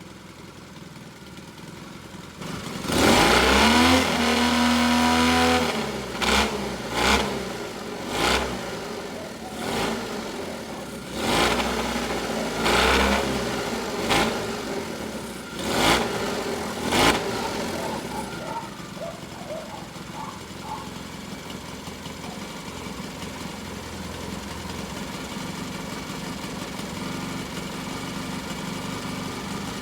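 Classic British motorcycle engine, just fitted with new spark plugs, runs quietly for a moment. About three seconds in it is revved hard with a rising pitch, then given about nine short sharp throttle blips before it settles back to a steady idle.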